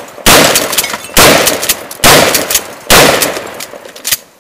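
Four pistol shots from a 10 mm Glock, fired at a steady pace of about one a second, each one trailing off in a long echo.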